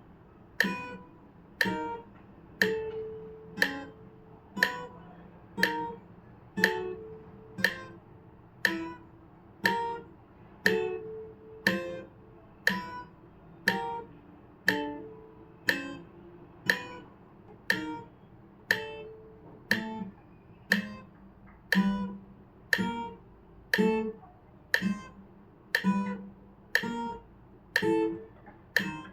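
Guitar playing a slow left-hand finger exercise, single plucked notes in time with a metronome clicking once a second (60 beats a minute).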